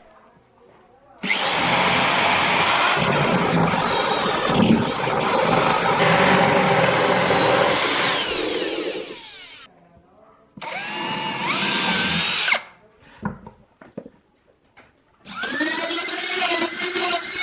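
Power tool running in bursts: a long run of about eight seconds, a short run that spins up a couple of seconds later, and another starting near the end.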